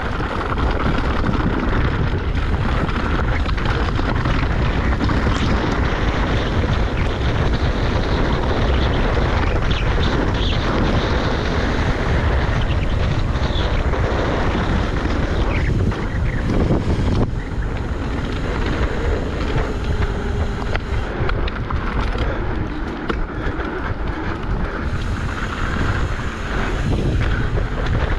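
Wind rushing over the camera microphone during a fast mountain-bike descent of a jump trail, a steady low rumble with scattered knocks from the bike and its tyres.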